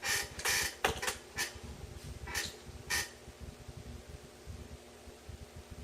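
About seven short clicks and knocks in the first three seconds, the first two a little longer and rustling, then only a faint steady hum.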